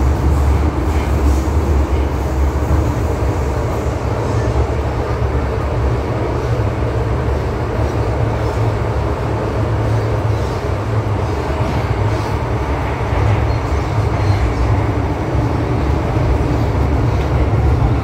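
MTR M-Train electric multiple unit running between stations, heard from inside the carriage: a steady, loud low rumble of wheels and running gear.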